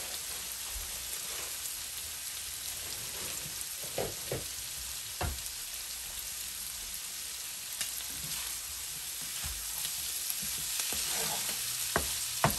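Shrimp, onion and chillies sizzling steadily in hot oil in a nonstick frying pan, with a few short knocks. Near the end a spatula starts stirring, with two sharper knocks against the pan.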